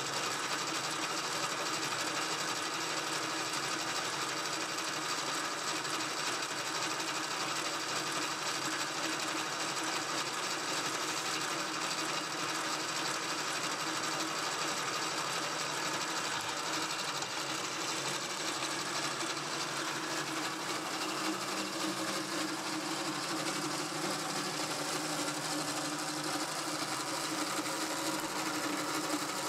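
An old electric motor driving a Bobcat M611 skid-steer's transmission through a belt and pulley, the machinery running steadily.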